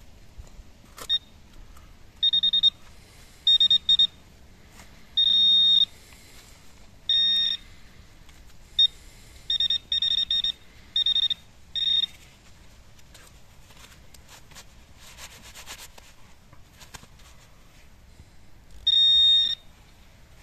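Garrett handheld pinpointer beeping: a steady high electronic tone in about ten short bursts of varying length, irregularly spaced, as the probe passes over and around a small metal target in the soil; each beep signals metal at the tip. A soft scraping of soil comes in the long gap between beeps, and one last beep sounds near the end.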